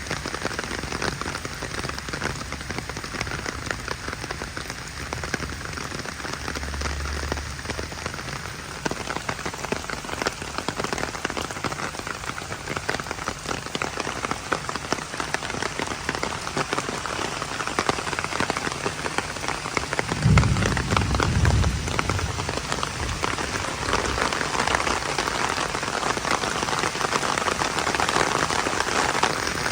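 Heavy rain falling steadily on a surface, a dense, even patter of drops. About twenty seconds in, a brief low rumble rises under the rain.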